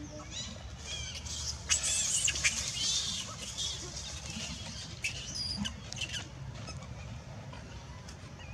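Baby macaque crying in repeated high-pitched squeals, the loudest run about two seconds in: the distress cry of an infant being weaned off its mother's milk. Branches and leaves rustle as the monkeys move in the tree.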